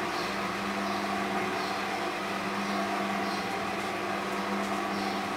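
Stainless steel powder mixer (Mazelar PM-100P) running, its electric motor and agitator giving a steady hum while stirring fine dry powder in the drum, with a faint swish recurring about every second and a half.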